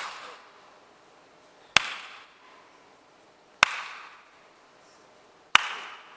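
Three single hand claps, evenly spaced about two seconds apart, each ringing out briefly in the room. They are timing cues for a client to contract the pelvic floor quickly on each clap.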